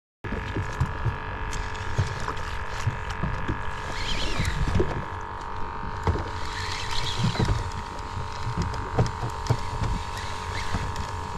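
Boat noise: a steady low rumble with a constant whine over it, and scattered light knocks.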